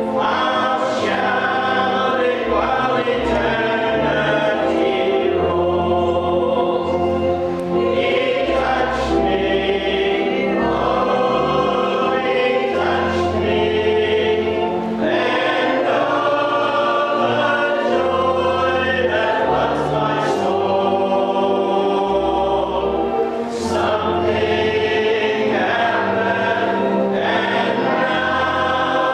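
A church congregation singing a hymn together, with instrumental accompaniment holding low bass notes under the voices.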